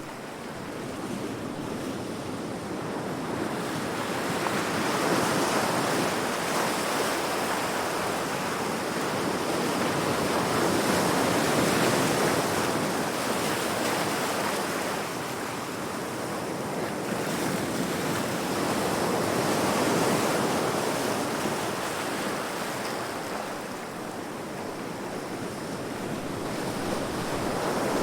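Heavy ocean waves breaking against rocks: a continuous rush of surf that swells and eases about every seven or eight seconds.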